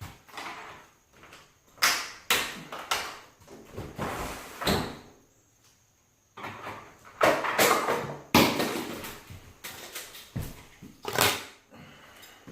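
Handling noise from fitting a vinyl replacement window and its parts: a series of sharp knocks and clacks, with stretches of rustling in between.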